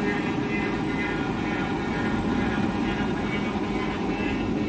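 Tissue paper slitting and rewinding machine running: a steady mechanical drone with a constant low hum.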